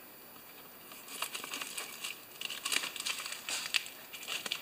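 A paper padded mailer crinkling and rustling in irregular bursts as it is handled and worked with scissors to cut it open, starting about a second in.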